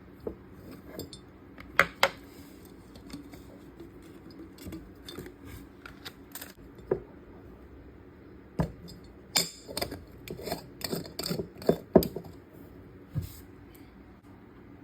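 A cup and its packaging being handled: scattered sharp taps and clicks with light rustling, busiest in a quick cluster about two-thirds of the way through.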